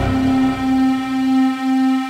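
Sustained low drone of a dark film score: one steady note with overtones, and a deep rumble under it that fades out in the first moment.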